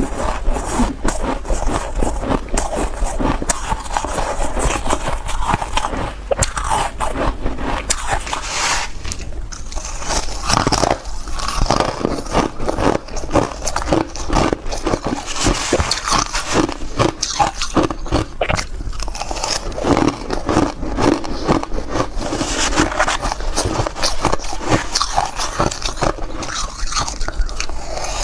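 Close-miked bites into soft white ice: rapid crunching and crackling as chunks of powdery, frosty ice are bitten off and crushed between the teeth.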